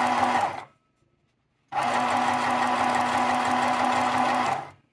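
Small Janome New Home travel sewing machine stitching at its single fixed medium speed, pretty loud. It stops just under a second in, starts again about a second later, runs for about three seconds and stops again.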